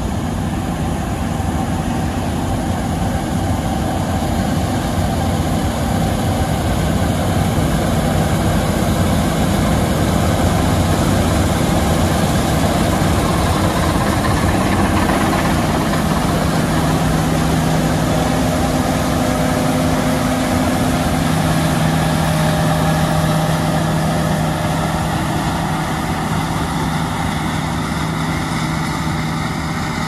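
John Deere S790 combine harvesters running while cutting and threshing wheat: a loud, steady machine drone. It grows a little louder through the middle as one combine passes close, and a steady low hum comes in about halfway and holds.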